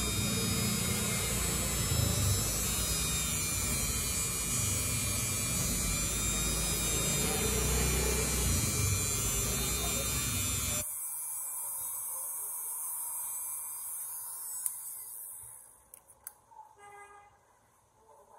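Small electric rotary grinder running and grinding a Zippo lighter's hinge to make it seat flush. It stops abruptly about eleven seconds in, and a fainter whir dies away over the next few seconds, with a few light clicks near the end.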